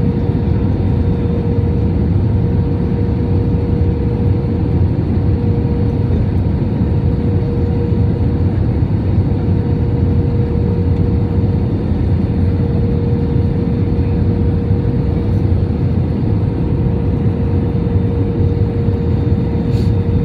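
Steady cabin noise of a jet airliner descending on approach: a continuous low rumble of engines and airflow with a steady hum running through it.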